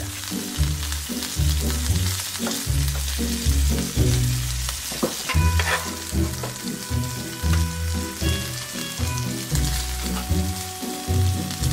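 Minced garlic sizzling in hot olive oil and salted butter around a tomahawk steak seared over high heat, with a spoon spreading the garlic through the pan. Background music with a steady repeating bass runs underneath.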